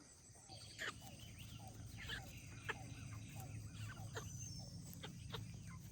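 Backyard hens clucking quietly, with short calls scattered throughout, over a low steady hum.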